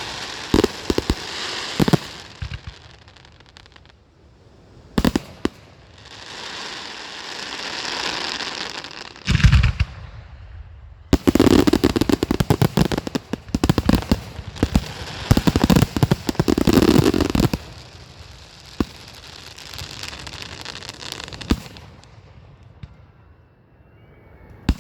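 Display fireworks going off: swelling hisses, sharp single bangs, and a dense salvo of rapid crackling pops in the middle that dies away near the end.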